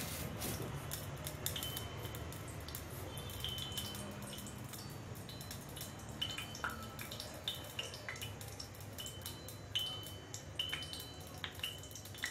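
Ghee heating in a small steel pan over a gas flame, crackling with irregular small pops and clicks as it comes up to piping hot, over a low steady rush.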